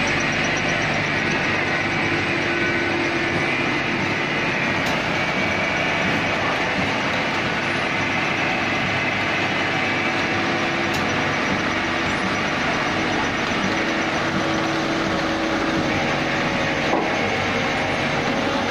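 Five-roller sugarcane crushing mill with its cane carrier running, crushing cane: a steady, dense mechanical noise with a faint hum, at an even level throughout.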